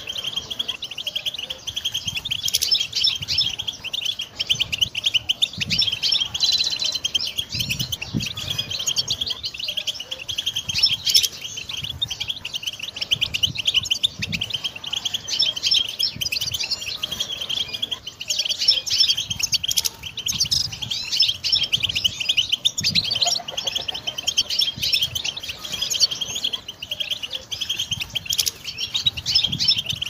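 European goldfinch singing continuously: a fast, unbroken stream of bright twittering chirps and trills.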